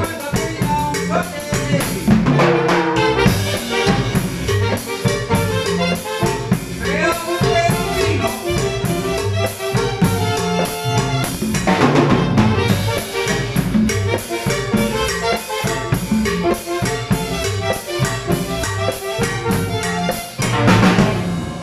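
Live band playing a Latin dance tune: electric bass, keyboard, drum kit and hand-played congas in a steady, driving rhythm.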